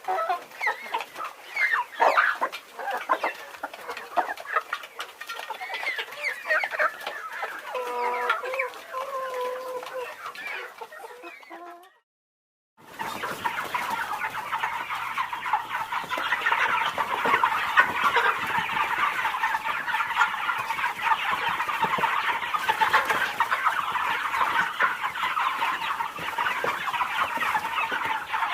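Chickens clucking: separate clucks and calls that fade out about halfway through. After a moment of silence, a dense, continuous chorus of many overlapping clucks begins.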